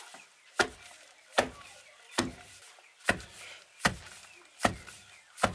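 Seven heavy, evenly spaced strikes, about one every 0.8 seconds, each a sharp knock with a low thud.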